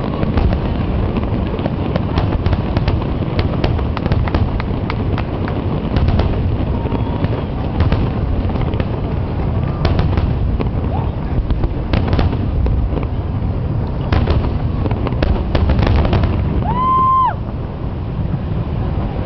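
Aerial fireworks shells bursting overhead in quick succession: many sharp bangs and crackles over a continuous low rumble. Near the end comes a short whistle, and then the bursts thin out.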